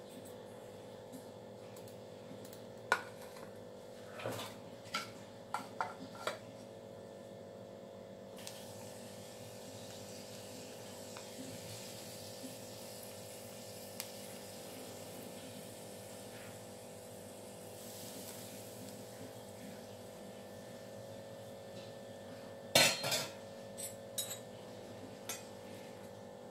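Steel utensils clink a few times, then ghee sizzles steadily in a small metal ladle as cashews roast in it. Near the end the ladle clanks loudly against a steel bowl as the hot ghee goes in, followed by a spoon clinking in the bowl.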